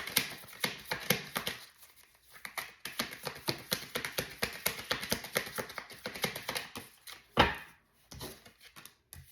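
Tarot deck being shuffled by hand: a fast, dense patter of card clicks, with a louder thump about seven seconds in.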